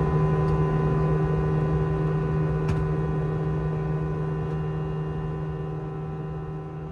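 Steady cabin drone of an Airbus A320 in its climb, from its CFM56 engines and airflow, with several steady hum tones over a low rush of noise. It fades gradually toward the end.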